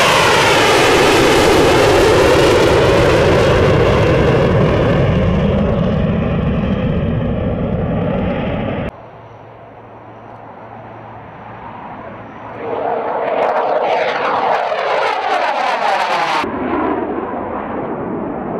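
F/A-18 fighter jets passing by in cut-together clips. A loud jet roar fades over the first nine seconds and cuts off suddenly. After a quieter stretch, another jet pass sweeps through with a falling pitch and cuts off abruptly near the end.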